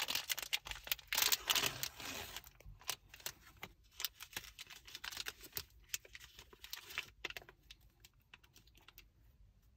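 Plastic wrapper of an NBA Hoops basketball card pack being torn open and crinkled, densest in the first two seconds or so, then lighter crinkles and small clicks of handling that thin out toward the end.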